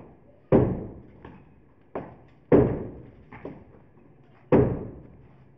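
Heavy hammer blows breaking up a reinforced concrete roof slab. Loud strikes land every second or two, with lighter knocks between them, and each one echoes briefly.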